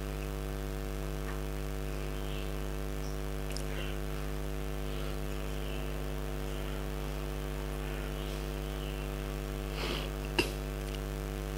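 Steady electrical mains hum, with one short click near the end.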